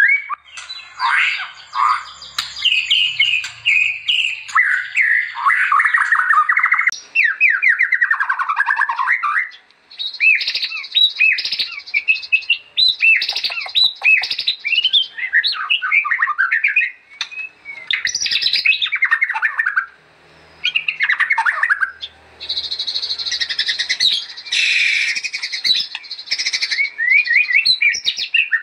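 White-rumped shama (murai batu) singing a long, varied song of rapid whistled phrases, pitch glides and trills, with short pauses about ten and eighteen seconds in.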